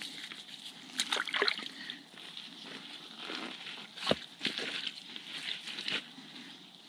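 Hands sloshing and splashing in shallow, muddy spring water, with a few sharp knocks as a stone is lifted out and set down on the rocks, at about one, four and six seconds in.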